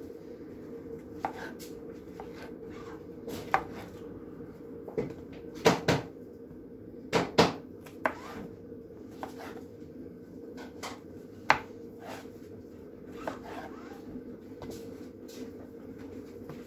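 Knife slicing mushrooms on a plastic chopping board: irregular taps and knocks as the blade strikes the board, a few louder ones in the middle, over a steady low hum.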